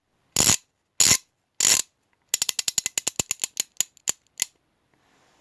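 Intro sound effect: three sharp knocks about half a second apart, then a quick run of about twenty clicks lasting two seconds.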